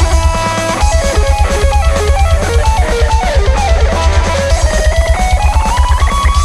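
Live band music: a lead melody that slides between notes over a fast, steady drum and bass beat.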